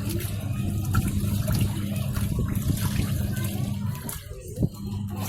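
Top-load washing machine's wash motor humming steadily while water churns in the tub. A little after four seconds in, the hum dies away, there is a single click, and it starts again, typical of the wash timer stopping and reversing the motor.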